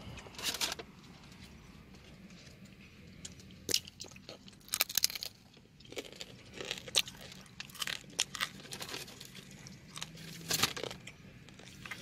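Plastic bag and salad-kit packaging crinkling and crunching in irregular bursts as the salad and empanada are handled inside it, over a faint steady low hum.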